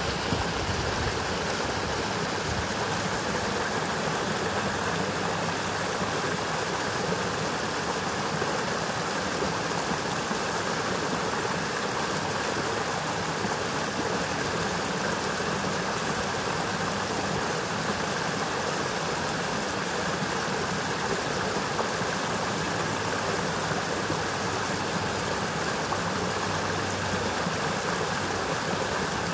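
Forest brook rushing: a steady, even rush of cold water tumbling downhill.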